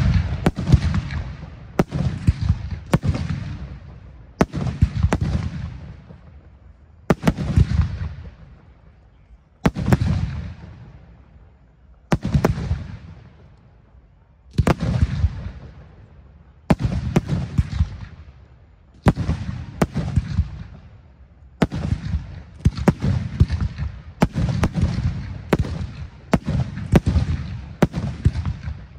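Aerial firework shells bursting one after another, each sharp bang followed by a long rolling echo. There are about twenty bursts a second or two apart, with a slower stretch near the middle and closer spacing in the second half.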